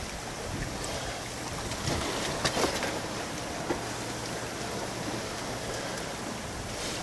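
Steady rush of wind and water aboard a sailing yacht under way, with a couple of faint knocks about two and a half seconds in.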